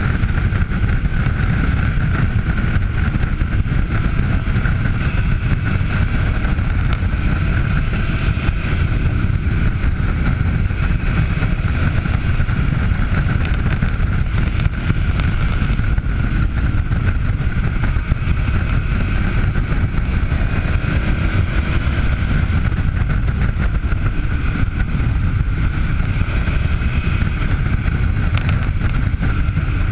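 A KTM V-twin adventure motorcycle's engine running at road speed, with heavy wind rush on the onboard camera's microphone covering much of it. There is a faint rise in engine pitch about two-thirds of the way through.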